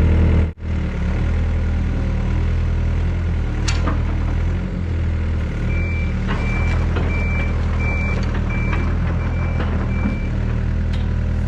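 Excavator diesel engine running steadily, with its travel alarm beeping, a series of short beeps about two a second starting about halfway through. There is a single knock about four seconds in.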